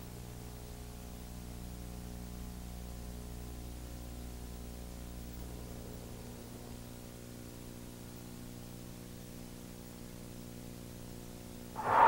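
Steady electrical hum with faint hiss from the recording. Near the end a whale's blow: a loud whoosh of breath lasting about a second.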